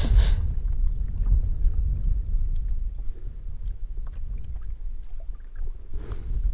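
Wind rumbling on the microphone with small water slaps against a plastic kayak hull, and a short gusty hiss right at the start.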